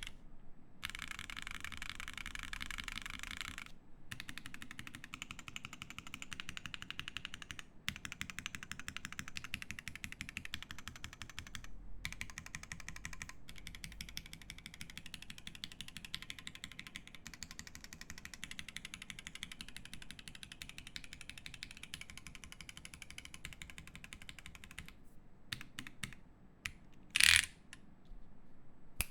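Continuous fast typing on a mechanical keyboard with lubed H1 switches, an FR4 plate and GMK keycaps, a dense run of keystrokes broken by brief pauses. Near the end the typing stops, leaving a few single key clicks and one much louder short knock.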